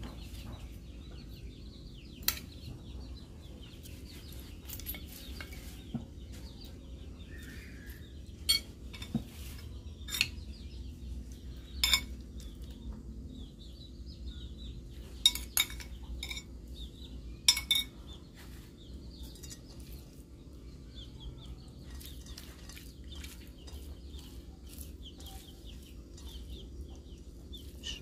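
Scattered sharp clinks and taps of utensils on a plate during a meal of fried fish, about ten in all, over a low steady hum, with chickens clucking faintly in the background.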